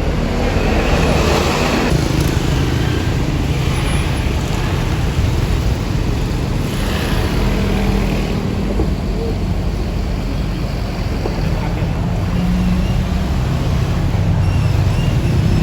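Large tour bus engine running steadily with traffic noise around it, and two short rushes of noise, about a second in and again around seven seconds; no horn is sounding.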